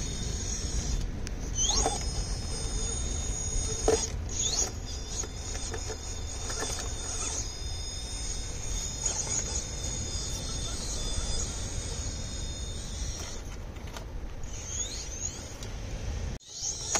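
RC rock crawler's electric motor and gear train whining in steady high tones as it crawls up a boulder, the pitch rising briefly a few times as the throttle opens, with a few sharp knocks from the truck on the rock. Wind rumbles on the microphone underneath.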